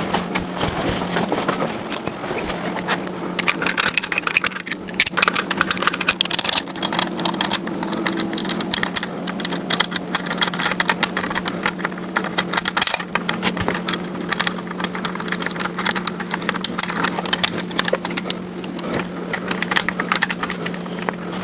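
Irregular light clicks and taps of hand tools on metal while a piston and rod are installed in a small-block Ford V8, over a steady low hum.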